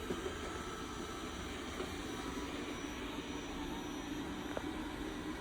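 Dreame D9 robot vacuum running with a steady hum while it finds its way back to its charging dock.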